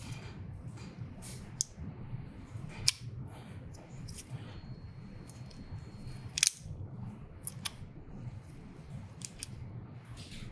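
Scattered small plastic clicks and handling noises from the printer's ink dampers and syringe being worked, the loudest a sharp double click about six and a half seconds in, over a low steady hum.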